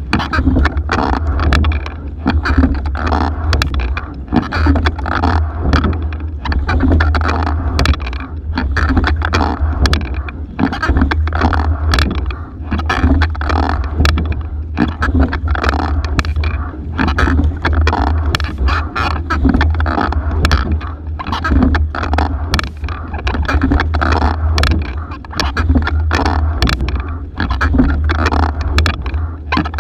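Single racing scull under way: oars, oarlocks and sliding seat clicking and knocking in a stroke rhythm about every two seconds, over water rushing along the hull and a heavy low rumble.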